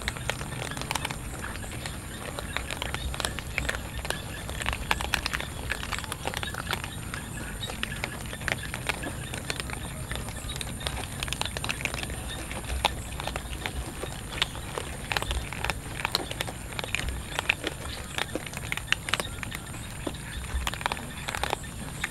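A group of cats crunching dry kibble: irregular sharp crunches and clicks, several a second, over a low steady rumble.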